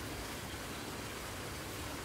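Steady hiss of running water.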